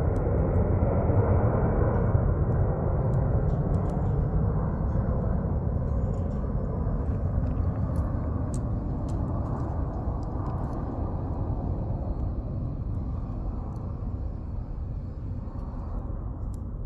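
A deep, distant engine rumble that slowly fades away, with a few faint crackles and pops from burning firewood in a campfire.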